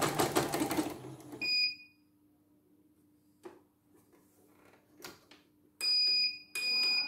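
CNY computerized embroidery machine stitching rapidly, then stopping about a second and a half in with a short beep from its buzzer. A few clicks follow, then two longer beeps near the end.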